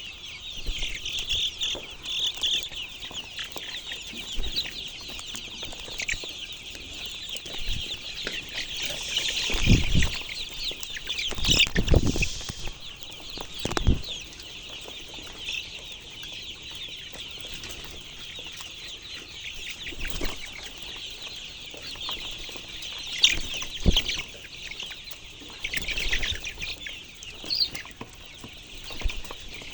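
A flock of chickens clucking and cheeping continuously, with a few louder thumps scattered through.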